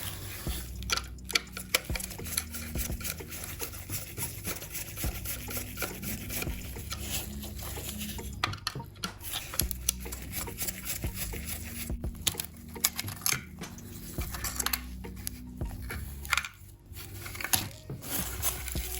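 Irregular clicks, taps and light scrapes of small hard parts being handled and worked on a toy model car, over a steady low hum.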